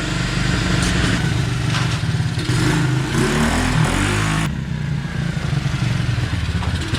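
Single-cylinder four-stroke engine of a 110cc Tao Tao pit bike running, its pitch rising and falling briefly about three seconds in. It is warming up after a top-end rebuild, letting the new piston rings seat.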